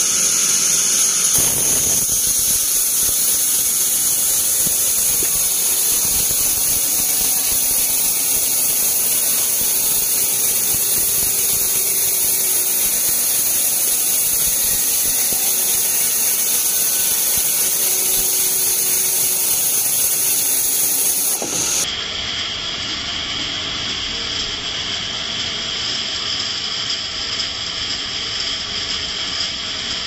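Band sawmill blade cutting lengthwise through a teak log: a steady, high-pitched squealing whine over the running saw. About two-thirds of the way through, the sound drops slightly in level but carries on steadily.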